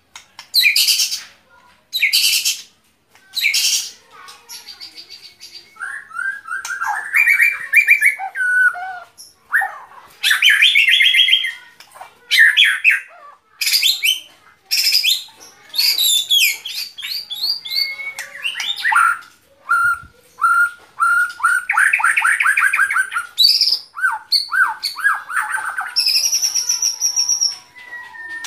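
White-rumped shama singing a long, varied song: sharp harsh notes at first, then clear whistles, rapid trills and sweeping glides in quick succession with short pauses between phrases.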